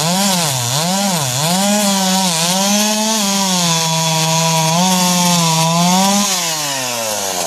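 Two-stroke chainsaw at high revs cutting through logs, its engine note dipping and recovering several times as the chain bites under load, then falling away about six seconds in as the throttle eases off.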